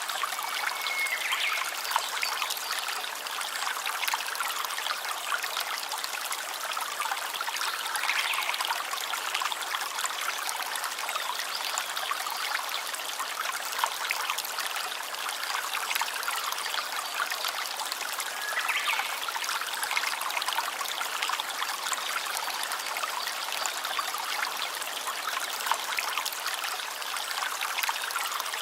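Water of a small stream trickling and splashing steadily.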